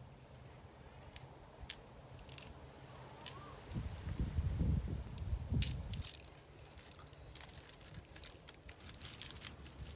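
A series of sharp clicks and crunching handling noises, with a cluster of low thuds about four to six seconds in.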